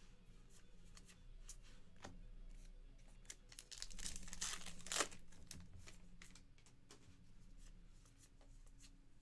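A trading-card pack wrapper being torn open, a crinkling rip from about four seconds in that ends in a sharp snap about a second later. Cards click and slide against each other in the hands before and after.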